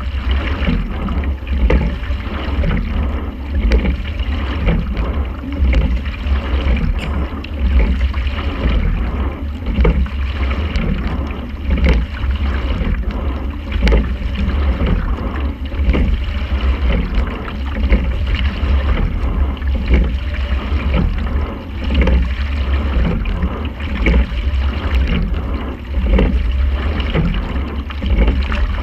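Racing quad scull being rowed: a regular knock about every two seconds, one per stroke (around 30 strokes a minute), over water running along the hull and a steady low rumble.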